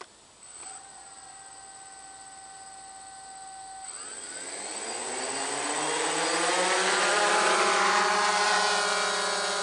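DJI Phantom quadcopter's four electric motors start and run with a steady whine. About four seconds in they speed up in a rising, louder whine as the drone lifts off, then hold a steady pitch near the end.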